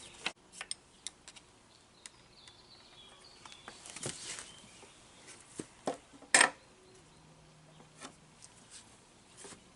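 Scattered light clicks and knocks of tools and small metal parts being handled as the carburetor is refitted to a Mercury 15 hp outboard motor, the loudest a sharp knock about six seconds in.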